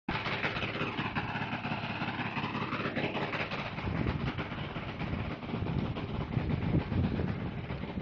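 Scat II hovercraft's engine and fan running with a steady rushing drone, sweeping and phasing over the first three seconds.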